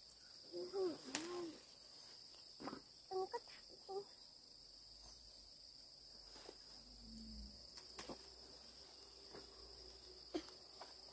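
Steady high-pitched insect chorus, with a few light knocks scattered through it and brief pitched calls in the first second or so.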